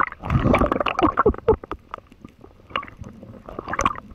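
Underwater gurgling and bubbling as the camera goes under with a diving spearfisher, strongest in the first second and a half, followed by scattered short clicks in the water.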